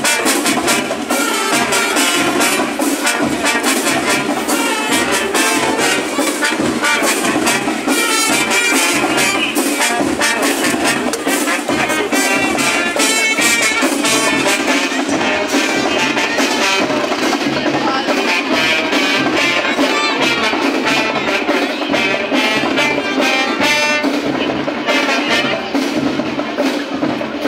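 Brass and percussion marching band playing live: trumpets and trombones with a low brass horn over a steady drum beat.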